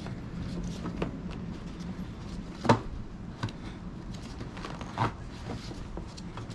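A few sharp clicks and knocks from hands handling plastic headlight parts. The loudest comes a little under halfway in. A steady low hum runs underneath.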